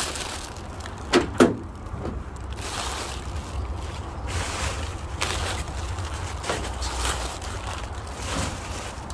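Two sharp knocks in quick succession a little over a second in, over a steady low rumble, with a few fainter knocks and rustles after.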